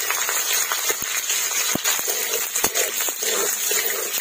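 Onion and panch phoron sizzling in hot oil in a large metal kadai, a steady hiss, while a metal spatula stirs them and knocks against the pan in a few sharp clinks.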